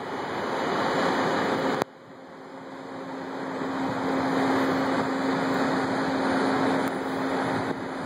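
Steady rushing airport background noise on a phone microphone, with a steady low hum running through it. The noise drops away suddenly about two seconds in, then slowly builds back up.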